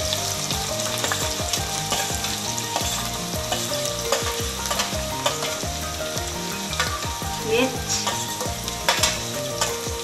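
Chopped onions sizzling as they fry in hot oil with cumin seeds in a deep pan. Scattered clicks and scrapes of utensils run through the steady sizzle.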